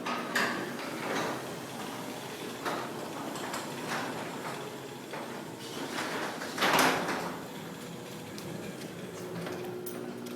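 New sectional garage door opening on a LiftMaster jackshaft opener: the motor running steadily while the door panels and rollers rattle up the tracks, with one louder clunk about two-thirds of the way through.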